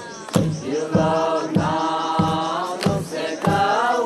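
Naga folk chant sung by a group of voices together, holding and sliding long notes, over a low thud about every two-thirds of a second.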